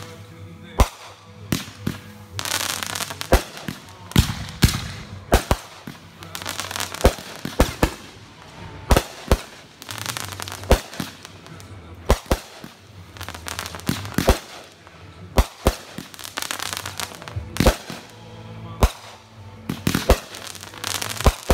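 Consumer firework cake firing a rapid volley of aerial shots: sharp bangs come about once or twice a second at uneven spacing, with hissing and crackle from the launches and bursts in between.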